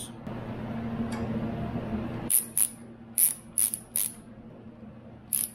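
About two seconds of steady hissing noise that stops abruptly, then half a dozen short, sharp, high-pitched clicks from parts and hand tools being handled on the aluminium engine.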